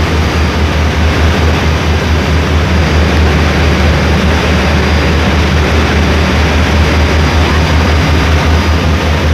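Passenger ferry's engine running with a steady, deep drone, over the loud rush of the churning wake water at the stern.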